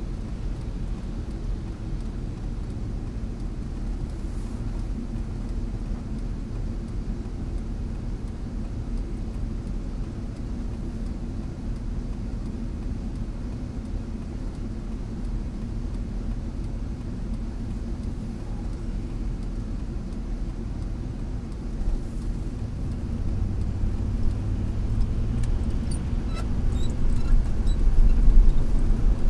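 Steady low rumble of a car's engine and tyres, heard from inside the cabin while driving, growing louder over the last several seconds. A few faint ticks sound near the end.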